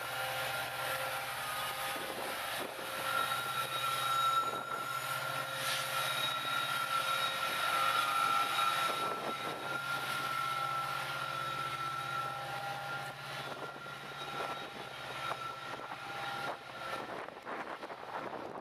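Pair of BNSF EMD diesel-electric locomotives running under power as they pass and pull away: a steady engine drone with a high whine above it, growing fainter toward the end.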